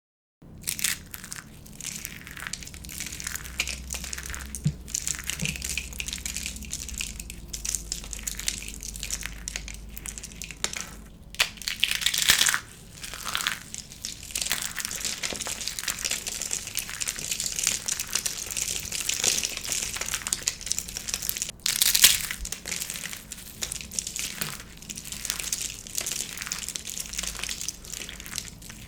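Dry soap crunching and crackling as it is crushed, a dense run of small snaps with louder crunches about twelve and twenty-two seconds in.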